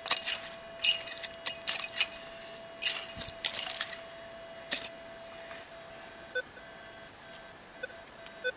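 Steel-bladed digging pick chopping and scraping into rocky, gravelly dirt: a quick run of strikes over the first four to five seconds. Near the end, the Minelab Equinox 800 metal detector gives a few short beeps as its coil passes over the hole.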